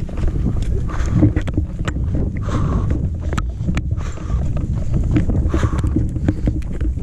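Wind rumble and handling noise on a body-worn camera's microphone while running on a dirt trail, with irregular sharp clicks and taps from footfalls and trekking poles.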